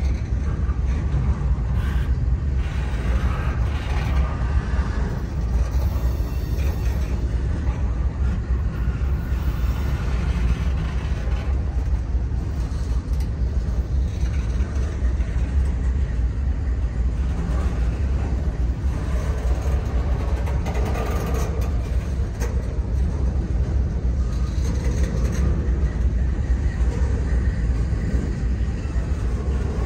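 CSX double-stack intermodal freight train's well cars rolling past close by: a steady, unbroken rumble of wheels on rail.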